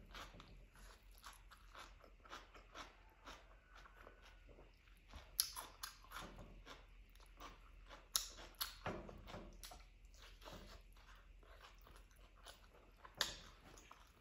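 Close-up mouth sounds of a person eating rice and curried chicken drumstick: steady wet chewing and small clicks, with three sharper, crunchier bites about five, eight and thirteen seconds in.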